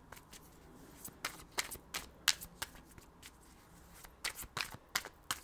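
A deck of divination cards being shuffled and handled by hand: a string of soft, irregular snaps and flicks.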